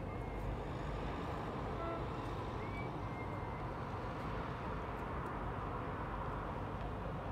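Steady outdoor rumble and hiss from a busy harbour, with one short, faint boat-horn toot about two seconds in.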